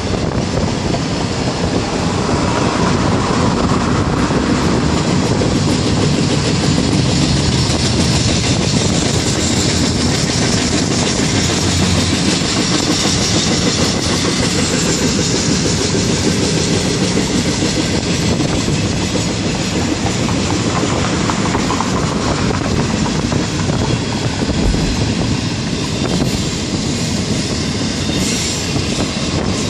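Double-stack intermodal container train rolling steadily on its well cars, a continuous noise of steel wheels on rail heard from a car driving alongside it.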